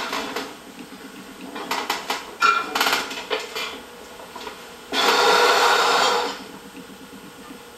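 Close handling of a small hard object: a run of clicks and scrapes, then a steady rasping noise lasting about a second and a half, the loudest sound.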